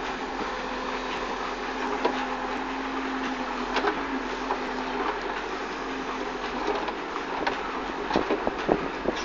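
Backhoe loader's diesel engine running steadily as the backhoe digs, with scattered knocks and clanks from the bucket and arm. A steady hum holds for a few seconds early in the digging, then fades.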